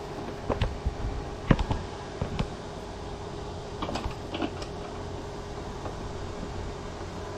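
Scattered light metallic clicks and knocks from metal parts and a bench vise being handled, mostly in the first half, over a steady machine hum.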